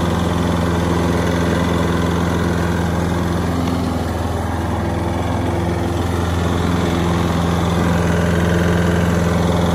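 2005 Toro Super Recycler walk-behind mower's small single-cylinder engine running at a steady speed, its first run after sitting since the fall.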